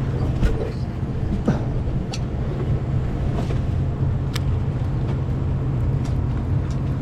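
Steady low drone of a sportfishing boat's engine, with a few sharp clicks scattered through it.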